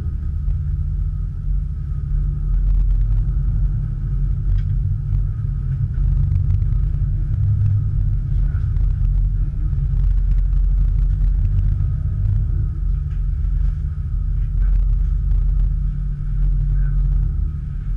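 Steady low rumble of a crew transfer vessel's engines and hull, heard from on board, with a faint steady whine above it.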